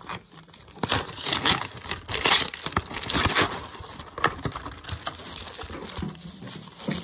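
Cardboard box of refrigerated pastry dough being opened and the paper-wrapped dough roll slid out and handled: irregular crinkling and rustling of paper and cardboard with small scrapes and clicks.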